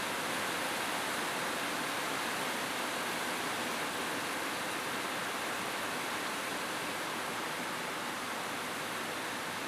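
Steady rain falling on a roof: a dense, even hiss of drops with no single strikes or thunder standing out.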